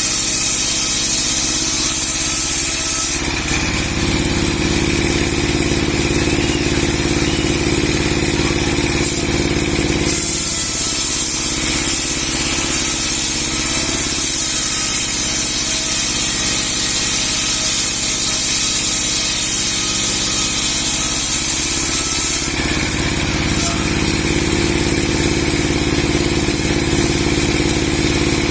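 Large log-sawing machine with a 60 cm steel blade and a 30-horsepower motor, running steadily. Its tone shifts abruptly about three seconds in, again about ten seconds in, and once more at about twenty-two seconds.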